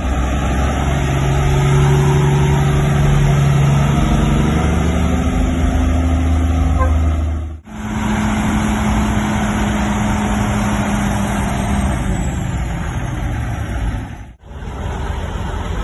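Diesel semi-truck engines running as the big rigs drive slowly past, in three short clips cut together. In the first clip the engine note climbs in steps. The second holds a steadier note.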